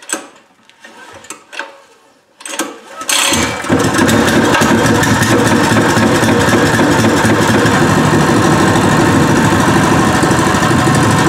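Pro Point 208cc single-cylinder OHV four-stroke engine being started for its first run: a few short sounds of the starting attempt, then the engine catches about three seconds in and runs loud and steady.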